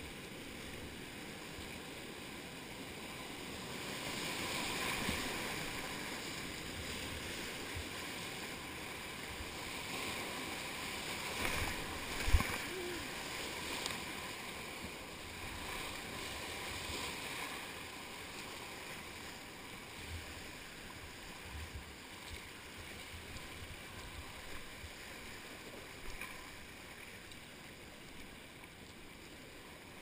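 Whitewater rapids rushing and splashing around a kayak, with paddle strokes and water hitting the kayak and camera. A single sharp knock about twelve seconds in is the loudest sound, with a few smaller knocks later; the rush grows fainter near the end as the water calms.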